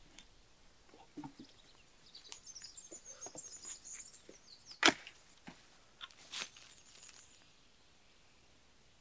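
Dry dead branches cracking and snapping as they are broken and pulled from a pile, with light crackling of twigs and one sharp snap about five seconds in, then a second, softer crack.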